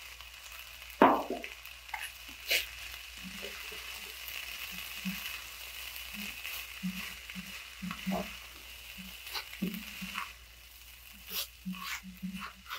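Rice, diced carrot and vegetables frying gently in a nonstick pan, a steady faint sizzle, while a silicone spatula stirs and scrapes the mix in short repeated strokes from a few seconds in. A few sharp clicks come through the stirring.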